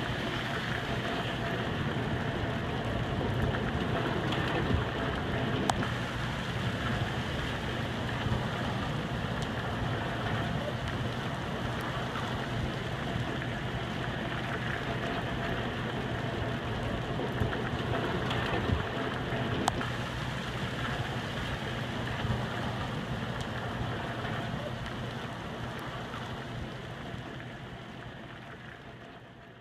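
Steady rain falling during a thunderstorm, with a couple of brief sharp clicks; it fades out near the end.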